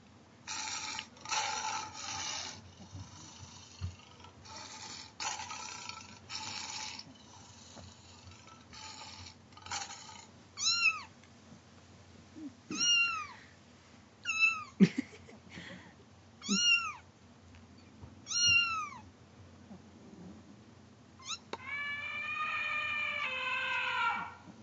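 Cat meowing: harsh, rough cries at first, then a run of short meows that rise and fall in pitch, a second or two apart, and one long drawn-out meow near the end.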